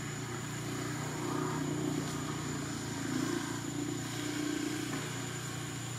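Steady low mechanical hum, slightly wavering, with a constant high-pitched whine over it.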